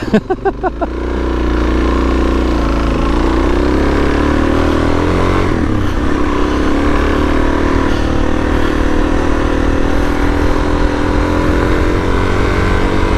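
Suzuki DR-Z400S single-cylinder four-stroke engine running in gear as the dual-sport bike rides along at steady revs, which dip and pick up again about six seconds in.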